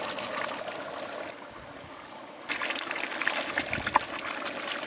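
Masala gravy simmering and bubbling in a large metal pot. About two and a half seconds in it gets louder, with sharp clicks and scrapes of a long-handled metal ladle stirring in the pot.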